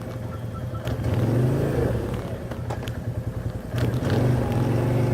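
ATV engine running and revving, its pitch and loudness rising about a second in and again near the end.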